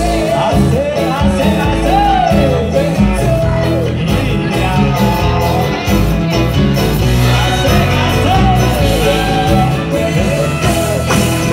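A live band playing a song with sung lead vocals over drum kit, bass and guitar, amplified through large outdoor PA speakers.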